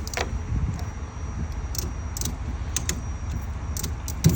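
Ratchet strap's ratchet being cranked to tighten the strap: irregular sharp metallic clicks, some in small clusters, with a louder knock near the end, over a steady low rumble.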